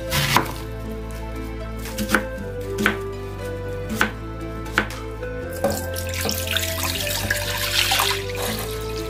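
A knife cutting through an onion and striking a wooden cutting board, about six sharp chops roughly a second apart. Near the end, water pouring into a pot.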